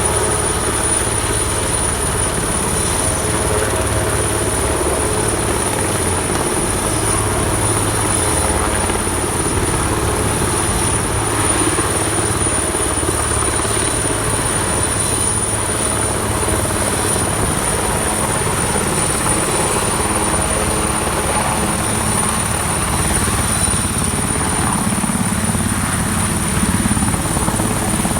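Police helicopter running steadily close by: a continuous rotor and engine drone with a steady high-pitched whine above it.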